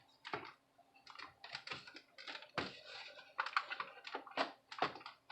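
Light, irregular clicks and taps of laptop parts and cables being handled and fitted into place during reassembly.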